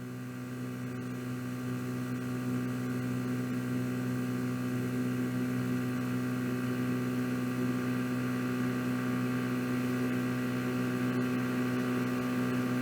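A steady low hum with a stack of overtones, held at one unchanging pitch and growing slightly louder over the first few seconds.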